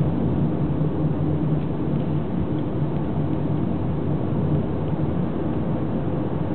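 A car driving at a steady speed, heard from inside the cabin: a low, even rumble of engine and tyres on the road.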